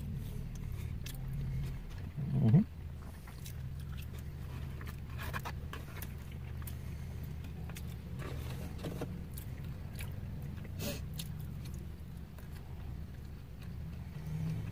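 Quiet eating: chewing fried chicken and small clicks of a fork against the food, over a steady low hum. About two and a half seconds in, a person makes one short rising 'mm'.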